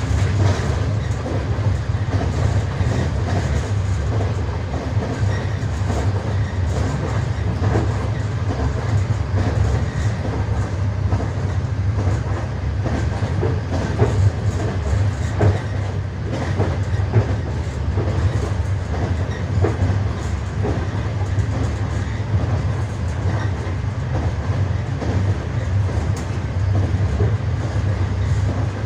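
Passenger train's wheels clattering over the rail joints, a repeated clickety-clack of knocks over the steady low rumble of the moving carriage.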